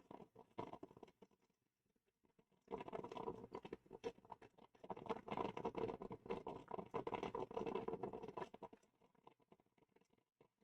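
Drip coffee maker gurgling and sputtering as it brews, in irregular spells: a short one at the start, then a longer one from about three seconds in that dies away near the end.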